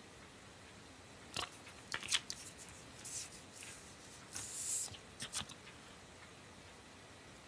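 Paper trading cards being handled: a scatter of sharp clicks and taps as the cards are picked up and touched, with a short sliding rustle a little past halfway.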